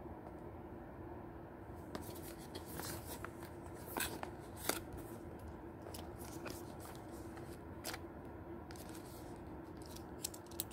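Hands handling and opening a cardboard product box: scattered crinkles, taps and clicks of the packaging starting about two seconds in, thickest near the end.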